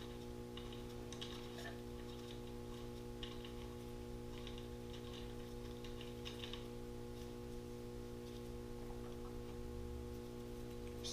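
Ratchet wrench clicking faintly in several short runs as an already-loose cam gear bolt is spun out, over a steady low hum.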